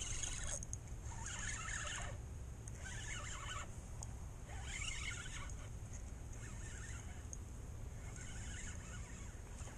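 Spinning reel being cranked in short spurts while a hooked speckled trout is brought in: a rasping whirr that comes and goes about every second and a half, fading towards the end.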